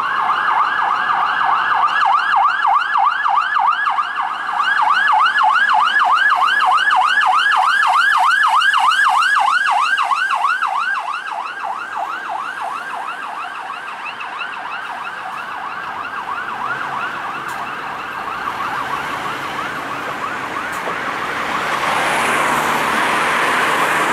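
Siren of a fire-service Mercedes-Benz Sprinter rescue van sounding a rapid yelp, fading as the van drives away on an emergency run. Road traffic noise grows near the end.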